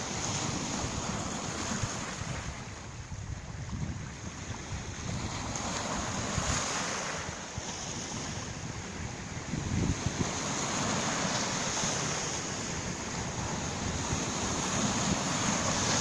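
Small Baltic Sea waves washing in over a pebble and boulder shore, the surf swelling and ebbing in slow washes every few seconds. Now and then wind gusts buffet the microphone.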